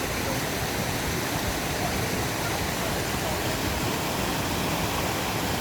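Rushing mountain-stream water, a steady, even noise like a small waterfall.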